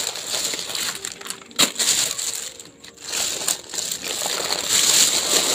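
Thin plastic shopping bag rustling and crinkling as a hand rummages among the foil snack packets inside it. There are a few sharper crackles, and it is louder near the end.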